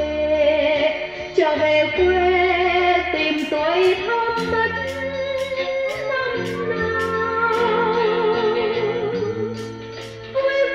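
A song played back from cassette on a Nakamichi 600II tape deck: a singer holding long notes with vibrato over bass notes. From a few seconds in, cymbal ticks come about twice a second.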